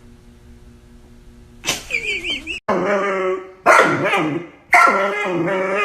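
A dog vocalizing in a string of long, drawn-out calls, about four of them, each roughly a second long with a wavering pitch, starting about a second and a half in after a faint hum.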